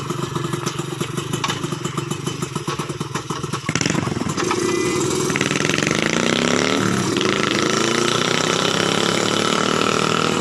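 Engine of a homebuilt aircraft running on test: a slow, evenly pulsing beat at first, then revving up about four seconds in and holding a high, steady speed.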